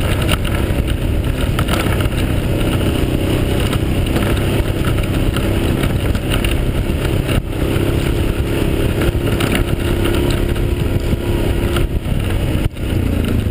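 Yamaha Grizzly 550 ATV engine running steadily under way on a rough dirt track, with continuous rumble from the ride.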